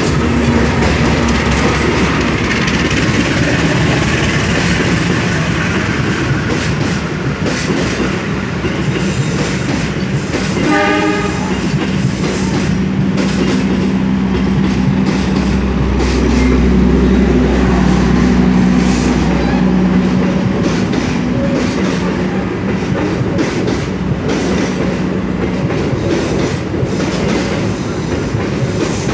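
A passenger train's coaches rolling past close by, the wheels clattering over rail joints and points with a steady rumble. A short horn-like tone sounds about ten seconds in, and the rumble swells for a few seconds in the middle.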